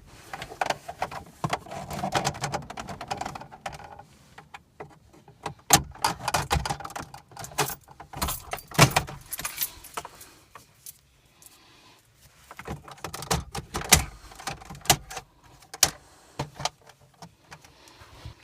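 Plastic interior dash trim panel of a car being handled after being pried loose: irregular clicks, snaps and rattling of plastic, with a few sharper knocks.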